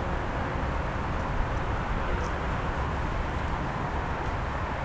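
Steady outdoor city ambience: a constant low rumble under an even hiss, with no distinct events.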